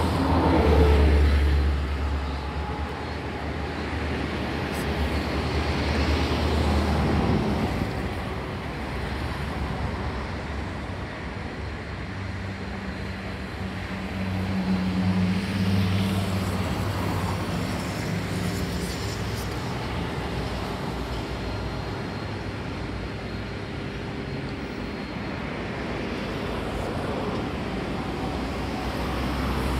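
Road traffic: vehicles driving past, their engine and tyre noise swelling and fading, with a deep engine drone in the first several seconds and a steadier low engine hum around the middle.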